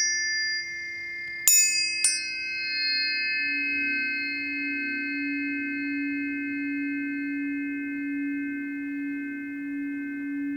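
Planetary tuning forks struck twice in quick succession, about a second and a half in, then ringing on in long, steady pure tones. The bright high overtones fade away over several seconds while a low tone keeps sounding.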